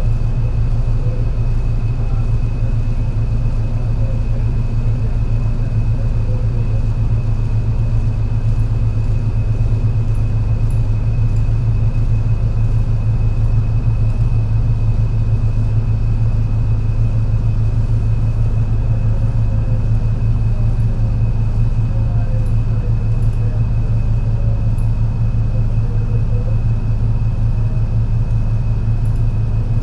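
MAN NL202 CNG city bus engine and ZF Ecomat automatic gearbox running steadily, a loud low rumble with a thin steady high whine above it. The engine has a bad misfire.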